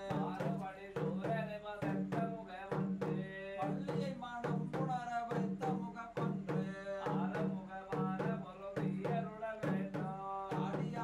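Tholpavakoothu shadow-puppet music: a voice chanting verses over frequent, steady drum strokes.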